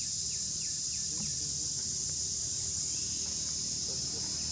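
Insects droning steadily at a high pitch over a low rumble, with a few faint short chirps.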